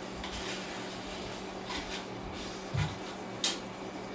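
Kitchen handling sounds at a stove: a few brief scrapes, a low thump near the middle and a sharp click shortly after, over a steady low hum.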